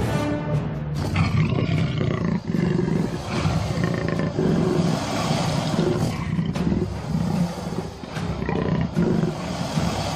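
A big cat growling and roaring repeatedly, over background music.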